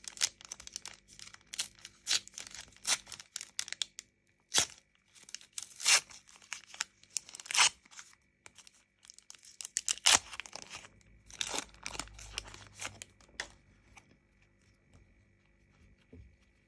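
Foil trading-card booster pack being torn open, the wrapper crinkling in a run of sharp crackles. Near the end it drops to faint rustling as the cards are handled.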